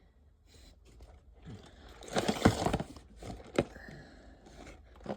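Plastic puzzle cube, a mini magnetic 7x7, being handled. A few sharp clicks, with a short scraping, crackling rattle about two seconds in.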